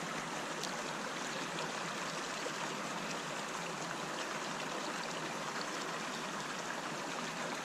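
Small, clear mountain stream running over rocks, a steady rush of flowing water.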